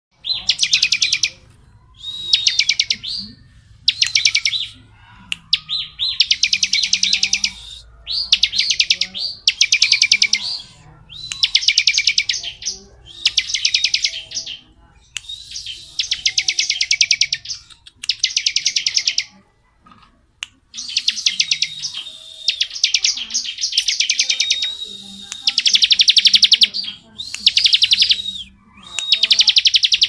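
Bar-winged prinia (ciblek) singing its long 'ngebren' song: high, rapid rattling trills about a second long, repeated roughly every two seconds with short pauses, and merging into a longer run about two-thirds of the way through.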